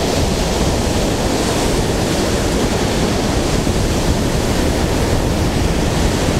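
Ocean surf breaking onto a sandy beach, a steady wash of waves without a break, with wind buffeting the microphone.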